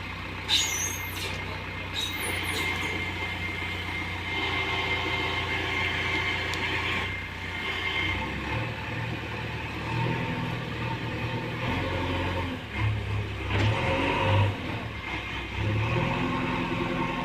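JCB 3DX backhoe loader's diesel engine running, revving up and down under load as the machine works. There are two short hisses in the first few seconds.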